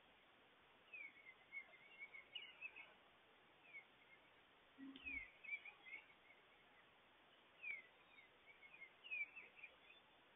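Faint birdsong: several birds singing short, falling chirps in quick little phrases, repeated every second or two.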